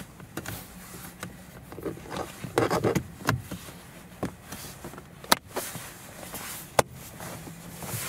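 Plastic power-window switch panel being pressed back into a Toyota Corolla's door armrest trim: rustling and handling of the plastic, then two sharp snaps about a second and a half apart as its clips seat.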